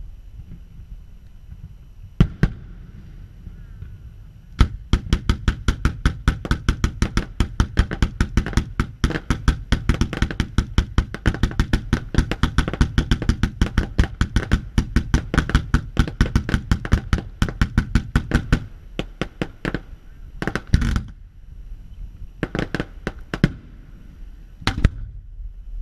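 Fireworks going off in a rapid barrage: a fast, even string of sharp bangs, about six a second, that runs for some fourteen seconds, then breaks into scattered single bangs and short clusters.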